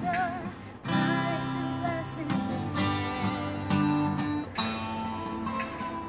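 Twelve-string acoustic guitar strummed, with fresh chords struck about a second in and several more times after. A sung note with vibrato fades out just at the start.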